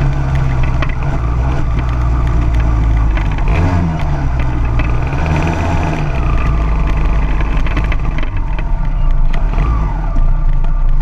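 Racing kart's engine heard onboard, at low revs after taking the checkered flag, with a brief dip and rise in pitch about four seconds in as the kart rolls slowly off the track.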